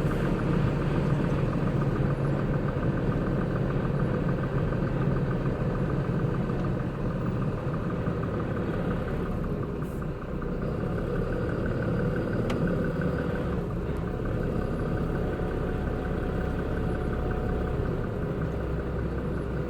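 Concrete mixer truck's diesel engine running steadily at low revs, a low hum that dips slightly about halfway through.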